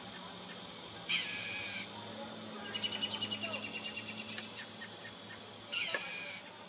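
A bird calls twice, about five seconds apart; each call slides quickly downward and settles into a short held note. Between the calls there is a rapid chirping trill, all over a steady high buzz of insects.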